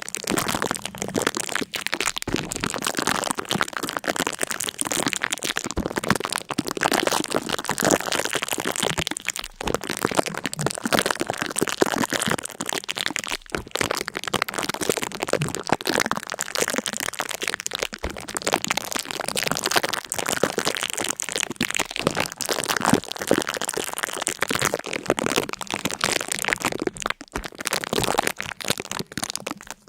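Dense, continuous crackling and crunching made of many fine cracks, broken by a few brief gaps.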